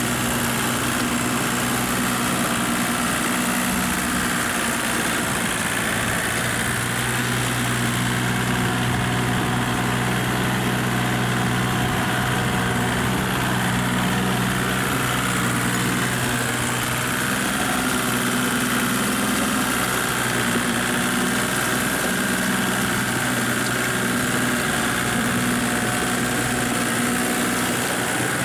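Small Kubota tractor's diesel engine running steadily at an even speed as it pulls a leveling harrow through paddy mud.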